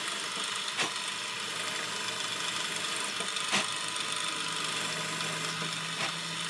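Milling machine spindle running as a carbide countersink drill, used as a centre drill, spots a start for a hole in a casting: a steady machine noise with two sharp clicks, one just under a second in and one about three and a half seconds in, and a low hum that joins about four seconds in.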